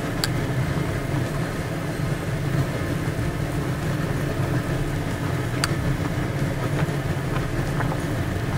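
Pot of chicken and daikon at a rolling boil, a steady low bubbling rumble, while scum is skimmed off with a metal ladle that clinks against the pot twice.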